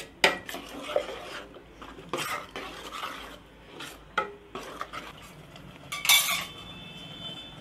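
Steel ladle stirring thick ground masala paste in a stainless steel pot, with irregular scrapes and knocks against the pot. A louder clank about six seconds in rings briefly.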